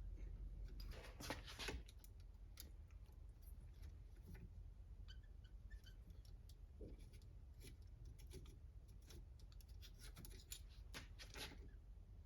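Faint scattered clicks and light handling noises of small parts and tools being worked by hand during an RC car teardown, with a denser run of clicks about a second in, over a low steady hum.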